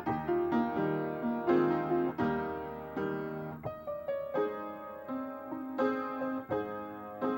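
Piano playing slow, chordal music, notes struck and left to ring.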